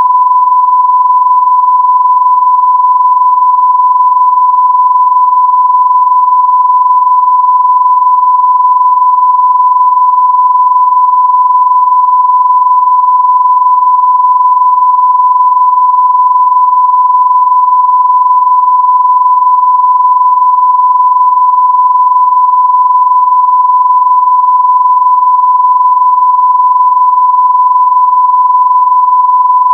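Censor bleep: one continuous pure tone at about 1 kHz, steady and unbroken throughout.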